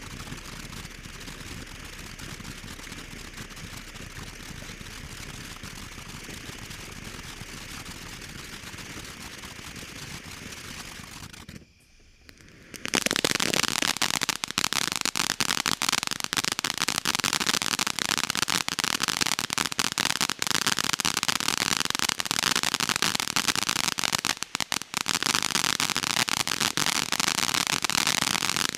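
Consumer firework fountain ("It's Good To See You") burning with a steady hissing crackle. After a brief drop almost to silence about twelve seconds in, it breaks into louder, dense, rapid crackling: the crackle finale.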